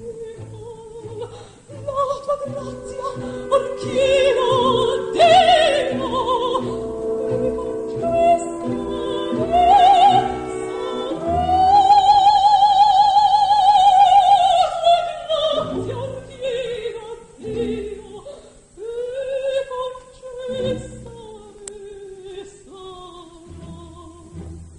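A female opera singer sings a bel canto line with wide vibrato over orchestral accompaniment. About halfway through she holds one long high note for roughly four seconds, then the phrase falls away.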